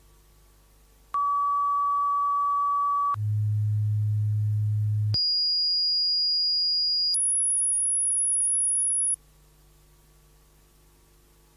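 Electronic audio test tones: four steady pure tones of about two seconds each, one straight after another. A mid-pitched tone starts about a second in, then a low hum, then a high tone, then a very high tone that cuts off about nine seconds in.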